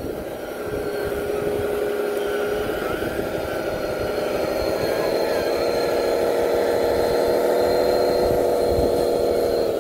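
Radio-controlled Caterpillar bulldozer model running as it tracks forward pushing dirt with its blade, its drive giving a steady mechanical whine that steps up slightly in pitch about four seconds in.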